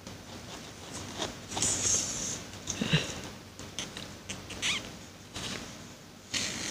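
Poly yarn being pulled tight through crocheted stitches while a button is sewn on: irregular scratchy rasps and rustles of thread and work being handled, with a longer hissy rasp about two seconds in.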